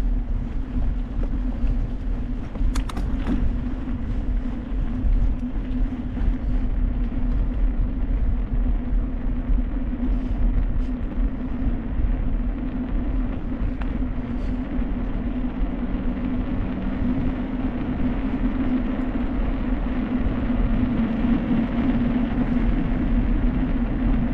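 Steady low rumble with a constant low hum, as of something moving along a road.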